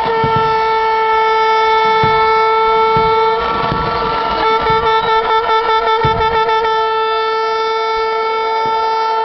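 A fan's handheld horn blaring one steady high note close by. About halfway through it breaks into a quick stutter of short blasts, about six a second, then is held again, over crowd noise.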